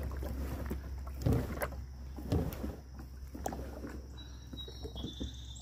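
Lifetime Tamarack Pro 103 polyethylene sit-on-top kayak knocking and scraping as it is launched into the water, with the loudest thumps about a second and two and a half seconds in, over a steady low rumble.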